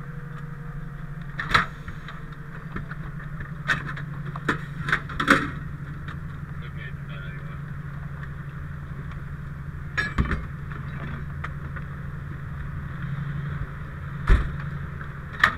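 Fire engine's diesel idling steadily as a low hum heard inside the crew cab, with scattered sharp clicks and knocks from a firefighter handling the seat-mounted breathing apparatus and gear. The loudest knock comes near the end.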